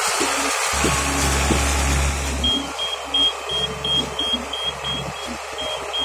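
A large self-propelled hydraulic boat trailer running, and from about halfway in its warning beeper sounding in short, high, evenly spaced beeps, about three a second.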